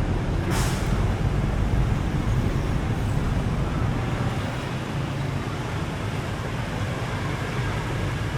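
Steady rumble of road traffic, with a short burst of hiss about half a second in.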